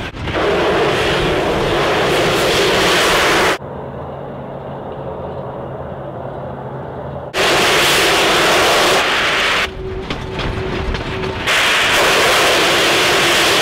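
Steam locomotive blowing off steam, a loud steady hiss heard in three long spells. Between them is quieter low train rumble.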